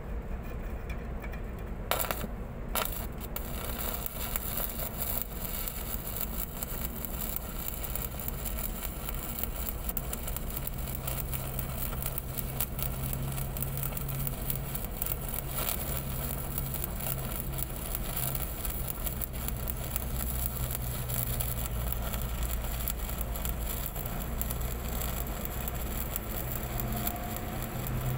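Stick (shielded metal arc) welding on a large pipe joint. The arc strikes about two seconds in after a couple of sharp taps, then crackles and sizzles steadily over a low hum.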